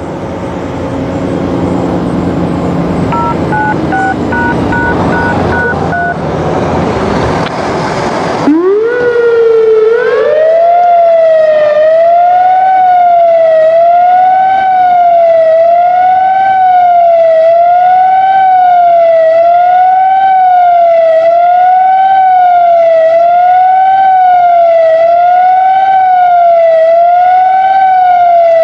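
Whelen 2016 outdoor warning siren starting up about eight seconds in, its pitch climbing, then sounding a fast wail, the pitch rising and falling about once a second. Before it starts there is a loud rushing noise with a few short beeps.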